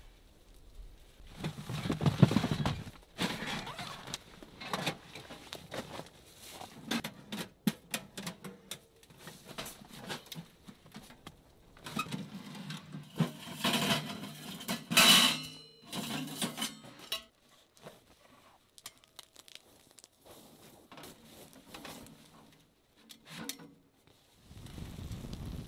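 A small sheet-metal camp wood stove being handled and set down, with irregular metal clanks and rattles; the loudest clank rings briefly, a little past halfway. Fabric rustling and shuffling on leaf litter run between the clanks, and a steady hiss takes over in the last second.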